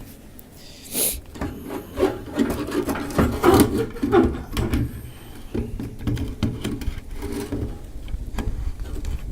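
Fuel pump assembly being worked out of a rusted fuel tank's opening: irregular scraping and rubbing with scattered knocks and clicks, starting with a sharp click about a second in.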